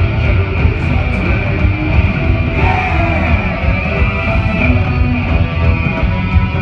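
Live rock band playing loudly, with drums and electric guitar.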